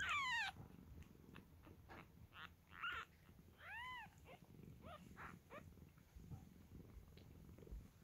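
Young kittens mewing: a loud, high mew falling in pitch at the start, then a string of shorter mews, one rising and falling about four seconds in.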